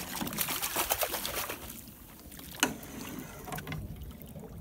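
Water splashing and crackling as a hooked morwong thrashes at the surface and is scooped into a landing net. A single sharp knock about two and a half seconds in, then quieter water.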